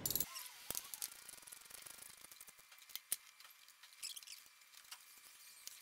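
Hands and a tool working a spark plug into the engine: scattered small clicks and taps, with a sharper click about three seconds in.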